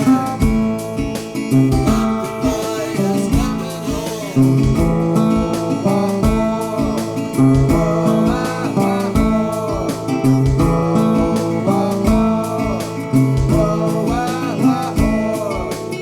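Background music: strummed acoustic guitar with a steady beat and a singing voice.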